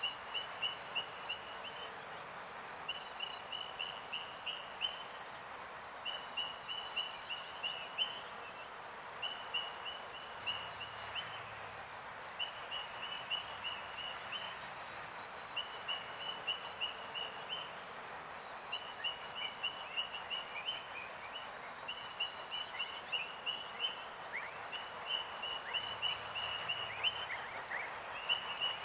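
Insect-like chirping, such as crickets make: a steady, rapidly pulsing high trill, with short chirp series a little lower that repeat about once a second, over a faint hiss.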